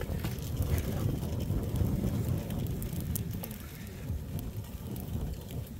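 Wind buffeting the microphone in a low, uneven rumble, with scattered small clicks and crackles over it.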